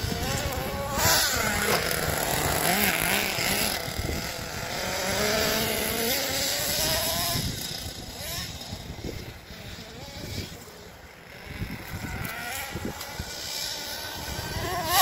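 Small nitro engine of a Red Cat Earthquake 3.5 RC monster truck running hard as it is driven, its pitch rising and falling with the throttle. The engine fades for a few seconds past the middle, then comes back.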